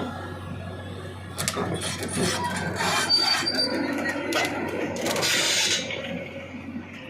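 Irregular clicks, knocks and scraping or rustling of hands working with tools or parts, starting about a second in and dying away near the end, over a steady low hum.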